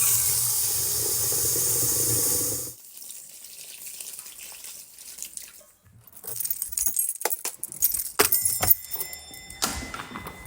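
A water tap running steadily for nearly three seconds, then shut off. About six seconds in, keys jangle and click.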